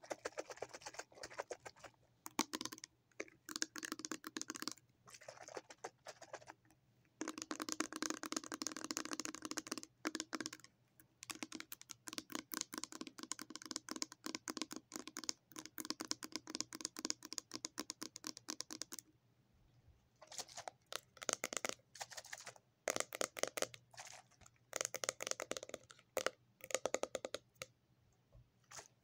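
Fingernails tapping rapidly on a small plastic body-mist bottle, in bursts of a few seconds with short pauses between.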